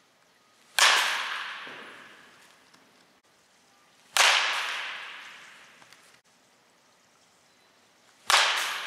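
Baseball bat striking the ball three times, about four seconds apart, each sharp crack ringing and fading away over a second or two in the echoing cage.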